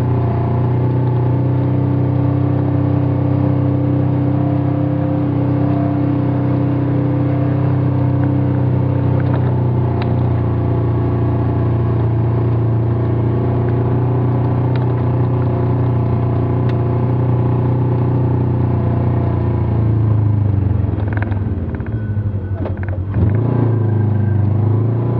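Vehicle engine running steadily while driving on a dirt road, heard from inside the cab, with a few light clicks and rattles. About twenty seconds in, the engine note drops and wavers for a couple of seconds, then steadies again.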